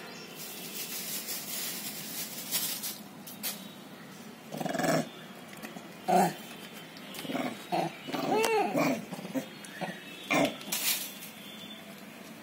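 Bonnet macaques giving a few short, rough calls in separate bursts, with one brief pitched call that rises and falls about eight and a half seconds in.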